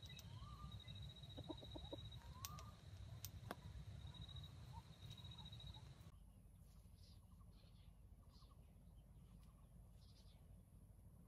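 Near silence, with a few faint soft calls from a red junglefowl rooster, a handful of soft clicks, and a steady high whine that stops abruptly about six seconds in.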